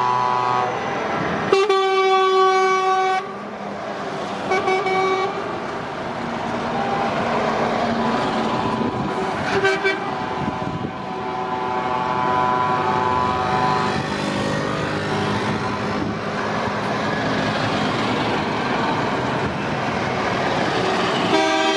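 Lorries driving past one after another with their engines running, and truck horns sounding several times. The loudest horn blast is a long one about two seconds in, followed by shorter toots, a longer stretch of horn about two-thirds through, and another blast at the very end.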